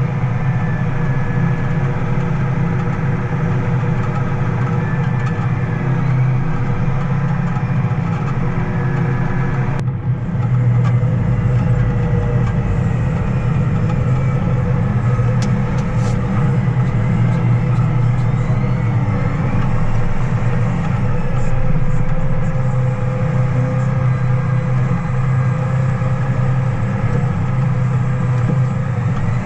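Large diesel farm machinery engine running steadily under load, a constant low hum with steady overtones and machinery noise; the sound changes abruptly about ten seconds in.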